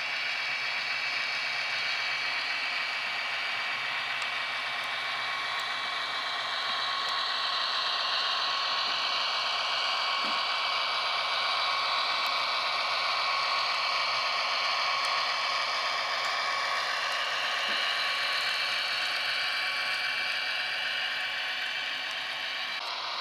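H0-scale Roco TEE RAm diesel railcar model running past on its track: the steady mechanical whir of its motor, gears and wheels on the rails, with a thin steady high whine. It grows slightly louder midway as the train passes closest.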